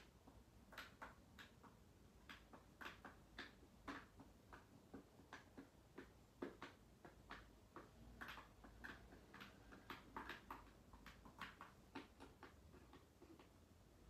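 Faint clicks of the Roland D-50 synthesizer's front-panel buttons being pressed one after another at an uneven pace, a few a second.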